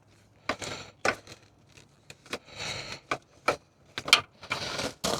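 Sharp plastic clicks and knocks with short scraping rubs between them, as an LED headlight bulb is worked by hand into the headlight housing of a 1996 Impala SS.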